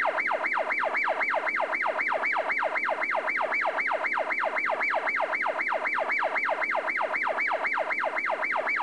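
Police car siren on a fast yelp: a rapid, even cycle of about four sweeps a second, each dropping from a high to a low pitch and snapping back up.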